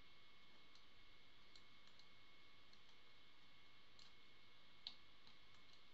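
Near silence: room tone with a few faint computer-mouse clicks, the clearest one near the end.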